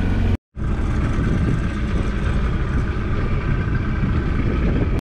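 A boat's Mercury 115 outboard motor running steadily, with water and wind noise. The sound drops out for a split second about half a second in and stops abruptly near the end.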